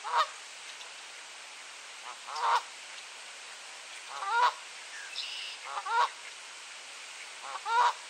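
Goose giving warning honks: five loud honks spaced about one and a half to two seconds apart.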